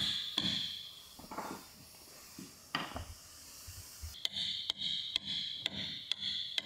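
Music fading out, then a caulking mallet striking a caulking iron in a steady run of sharp taps about two a second, starting about four seconds in, as cotton is driven into the deck seams.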